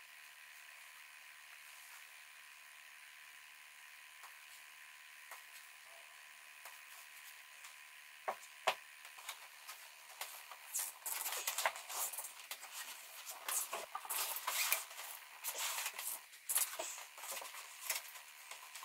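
Faint steady hiss for the first several seconds, a couple of sharp clicks, then from about ten seconds in irregular crackling and rustling as a black strip is wrapped and pressed around the edge of a small pine frame.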